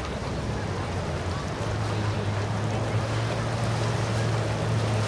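Steady low hum of boat engines idling at a crowded sandbar anchorage, growing louder about a second and a half in, over wind and water noise.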